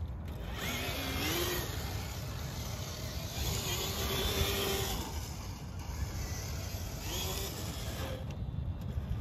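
Traxxas TRX4 Bronco RC crawler driving in high gear, its Castle 1412 3200KV brushless motor and drivetrain whining and rising and falling in pitch a few times with the throttle. Wind rumbles on the microphone throughout.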